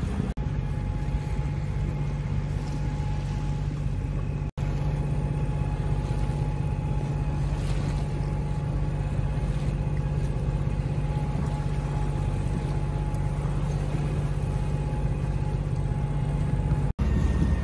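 Steady low hum over wind and water noise aboard a sailboat under way, breaking off for an instant twice.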